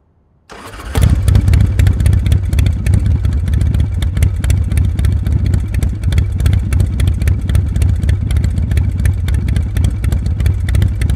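A motorcycle engine running steadily with a rapid clatter, coming in about half a second in.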